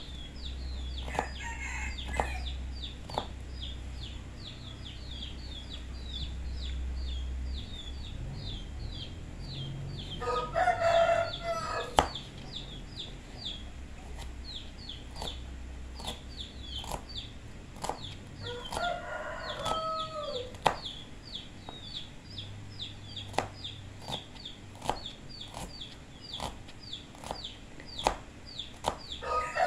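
A rooster crows twice in the background, about ten seconds in and again near twenty seconds, with a third crow starting at the very end, while a small bird chirps rapidly throughout. Over this come sharp taps of a kitchen knife slicing shallots and garlic.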